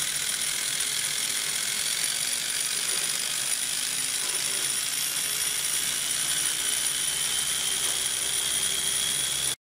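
Homemade RC helicopter main rotor gearbox under test, driven by a small electric motor with the rotor head spinning: a steady mechanical whir of meshing gears with a high-pitched whine. It stops abruptly near the end.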